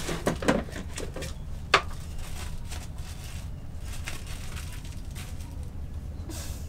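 A small knotted plastic bag being handled and untied: a few crinkles and clicks in the first two seconds, the sharpest just before two seconds in, then only a low steady hum.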